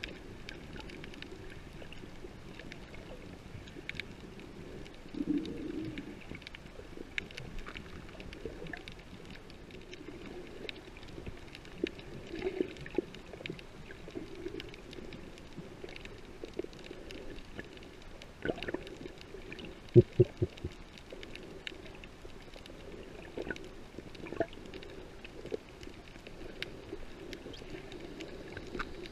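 Muffled underwater sound picked up by a snorkeller's submerged camera: a low steady hum with scattered clicks and crackles, and a few heavy low thumps about twenty seconds in.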